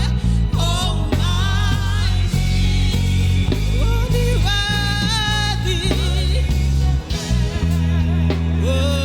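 Live gospel worship music: a singer holds long, wavering notes over a band with a heavy bass line.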